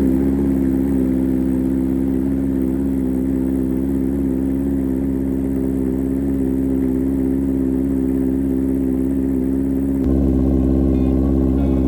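A 2024 Honda CBR650R's inline-four engine idling steadily through an SC aftermarket exhaust, just started after an oil change.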